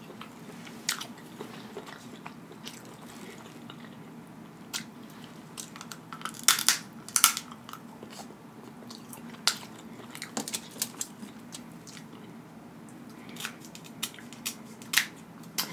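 Snow crab legs being eaten: scattered clicks and cracks of shell being broken and picked apart, with chewing, and a burst of louder cracks a little before halfway. Near the end, kitchen scissors snip through crab shell a couple of times.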